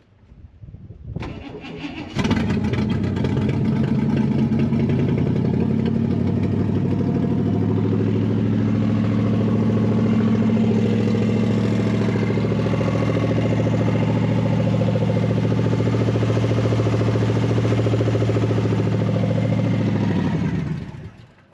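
Barn-find Chevelle's big-block V8, running on fuel poured into the carburetor's fuel bowl, cranks and catches about two seconds in. It then runs steadily for about eighteen seconds and dies out near the end.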